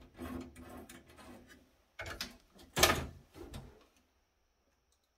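Sheet-metal chassis and circuit board of a network switch fabric module being handled and shifted on a table. Scraping and rattling for about a second and a half, then a few knocks, the loudest about three seconds in.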